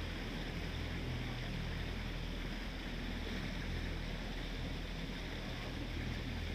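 Motorboat engine running steadily at cruising speed, a constant low drone heard from aboard, with a steady wash of water and air noise over it.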